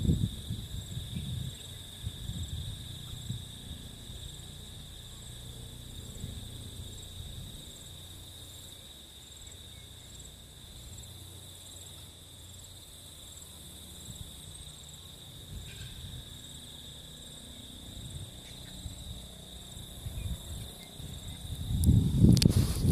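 Insects chirring in a steady, unbroken high trill. A low rumbling noise comes and goes in the first few seconds and swells loud near the end.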